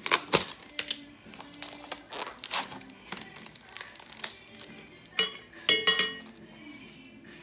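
Kitchen handling sounds: a run of sharp clicks and knocks as a plastic tub and a metal spoon are handled over a mixing bowl, then, near the end, two or three ringing clinks of the metal spoon against the bowl.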